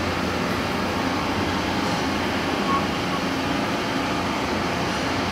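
Large heavy-duty lathe running: a steady mechanical drone with a low hum and even noise, unchanging throughout.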